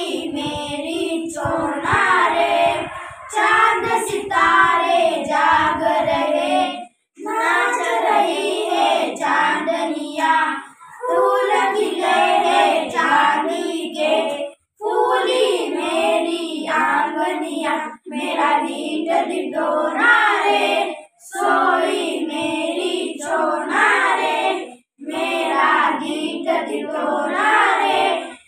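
A small group of children singing a song together in unison without accompaniment, in phrases separated by brief pauses for breath every few seconds.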